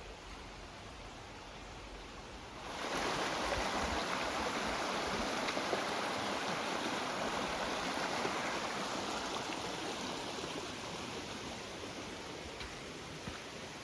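Rushing stream water: a steady rush that comes in suddenly about three seconds in, then slowly fades.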